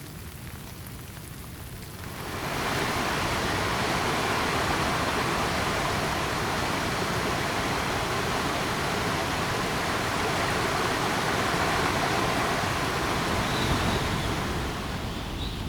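Rain on a surface, then about two seconds in the steady rush of fast-flowing water takes over as a dense, even noise. It eases off near the end.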